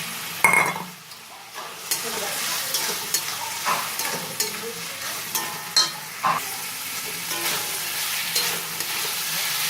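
Fried potato pieces going into a pan of sizzling spice paste with a clatter about half a second in, then a spoon stirring and scraping the pan in short strokes while the masala sizzles.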